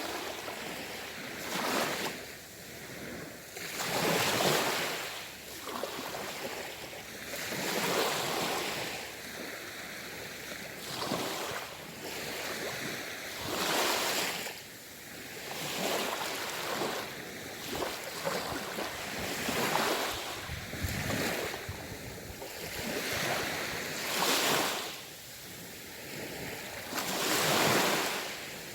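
Ocean waves breaking on the shore, surging and washing back every three to four seconds.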